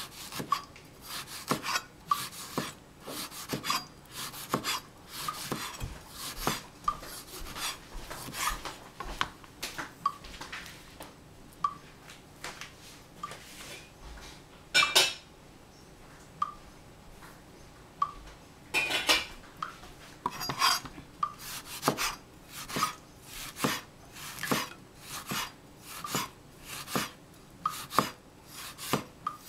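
Chef's knife knocking and scraping on a plastic cutting board as the peel is cut off an orange: irregular sharp taps about a second apart, with a pause of a few seconds about halfway through.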